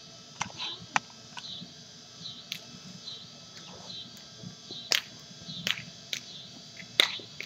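A chorus of insects, a high-pitched drone that swells and fades in an even pulse a little faster than once a second, broken by scattered sharp clicks and knocks.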